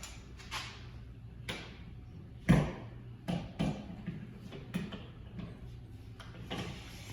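Scattered knocks and clatters at uneven intervals, the loudest about two and a half seconds in, over a low steady hum.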